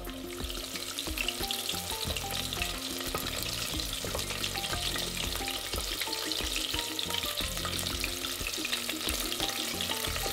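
Cornstarch-coated chicken pieces sizzling and crackling in hot oil in a stainless steel pot as more pieces go in, a steady dense crackle that builds slightly just after the start.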